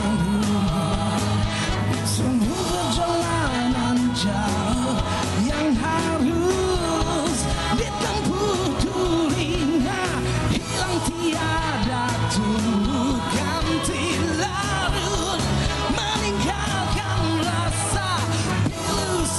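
Live rock band playing with a man singing in Malay over a steady full-band accompaniment.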